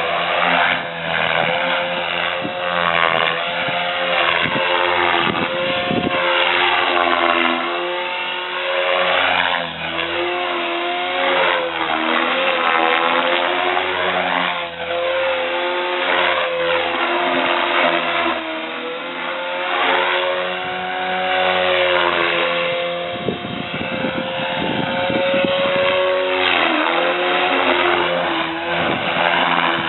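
Gaui Hurricane 425 electric RC helicopter with a Scorpion HK3026-1400 brushless motor flying, its rotor and motor making a steady pitched hum that swoops up and down in pitch again and again.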